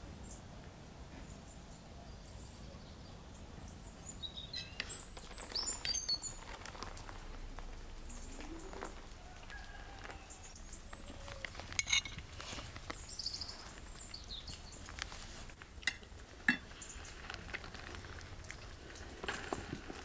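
Forks clinking and scraping on plates in a few sharp clicks, with short bird chirps now and then over a low steady outdoor background.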